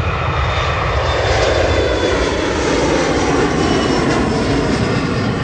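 Airliner engines going by close, a loud steady roar whose pitch slides down as the aircraft passes, with faint high whistling tones. Heavy low rumble of wind on the microphone underneath.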